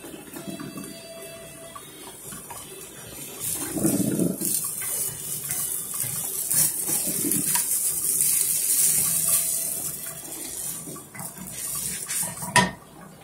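Zucchini pancake frying in oil in a nonstick pan, the sizzle swelling as a spatula is slid under it and the pancake is turned, with scrapes of the spatula on the pan. A single sharp knock near the end is the loudest sound.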